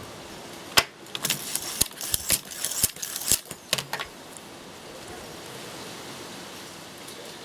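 A quick run of sharp clicks and rattles, starting about a second in and lasting about three seconds, over a steady hiss.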